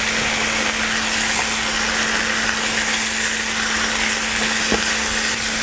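Broccoli, onion and freshly added carrots stir-frying in a hot wok, sizzling steadily. A steady low hum runs underneath.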